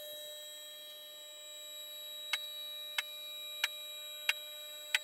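Two-post vehicle lift raising a car: the lift's power unit gives a steady whine. From a little over two seconds in, the safety locks click about every two-thirds of a second as the carriages ratchet upward.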